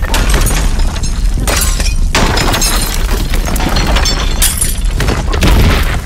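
Earthquake sound effect from the FXGuru movie-effects app: a continuous deep rumble with several loud crashes of breaking debris.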